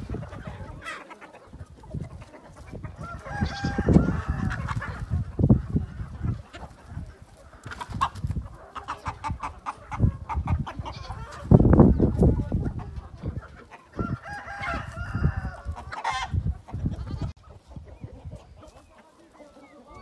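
A flock of free-range chickens clucking, with a rooster crowing about three seconds in and again around fifteen seconds. Loud bursts of low rumble come and go, strongest just before the middle.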